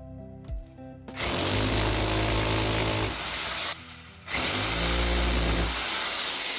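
A handheld power tool run twice in bursts of about two seconds each, its motor spinning up at the start of each run, over background music.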